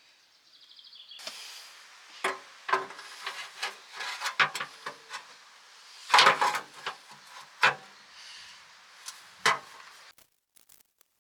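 A string of sharp knocks and clatters with some rubbing in between, the loudest cluster about six seconds in: parts and tools being handled during a mechanical rebuild.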